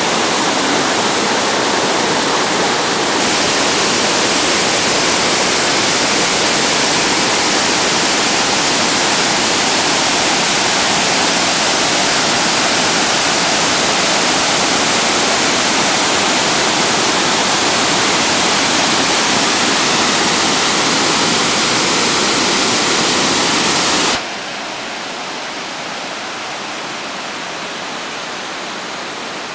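Waterfall rushing: a steady, dense noise of falling water. About 24 seconds in it drops suddenly to a quieter, duller rush.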